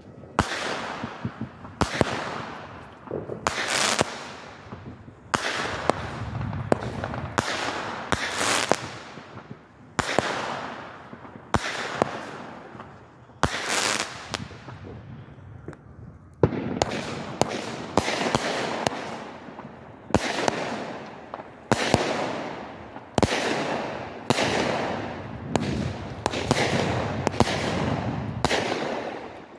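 Consumer aerial fireworks firing and bursting in quick succession: a long run of sharp bangs, one every half second to two seconds, each followed by a rush of noise that fades over about a second. There is a brief lull about two-thirds of the way through before the bursts resume.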